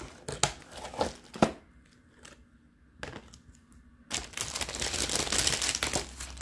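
Clear plastic bags crinkling as they are handled: a few short rustles in the first second and a half, then steady, dense crinkling from about four seconds in.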